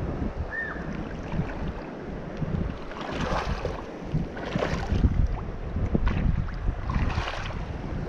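Wind rumbling on the microphone over the steady rush of a shallow river, with three brief louder surges of hiss about 3, 4½ and 7 seconds in.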